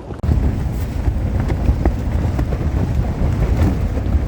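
Strong gusting wind buffeting the microphone, a heavy low rumble that starts abruptly just after the start and keeps surging.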